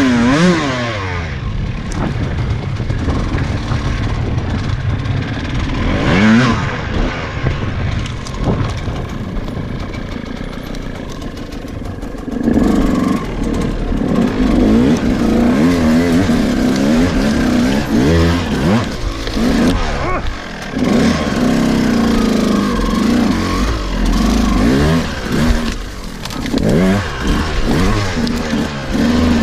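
KTM EXC 200 single-cylinder two-stroke dirt bike engine revving up and down over and over as it is ridden off-road, the throttle opened and shut in quick bursts. It gets louder and busier about twelve seconds in.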